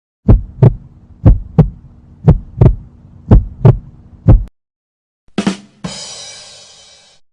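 Heartbeat sound effect: deep paired lub-dub thumps about once a second over a low hum, four double beats and a last single thump. Then a sharp hit and a noisy crash that fades out.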